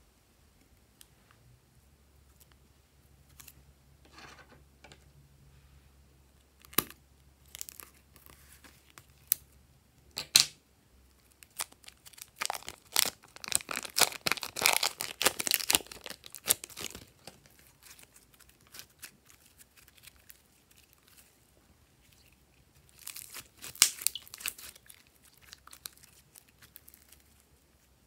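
A plastic piping bag full of slime being peeled and torn open by hand: crinkling and tearing plastic, loudest over several seconds in the middle, with a few sharp clicks before it and another burst of crinkling later.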